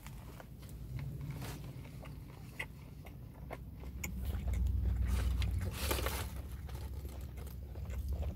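A person biting into and chewing a breaded chicken sandwich on a pretzel bun, with short crunches and crackles. A louder low rumble of the phone being handled comes about four to six seconds in.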